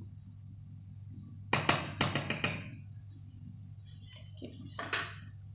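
A metal spoon clinking against a bowl in a quick run of several taps about a second and a half in, then once more near the end, over a steady low hum.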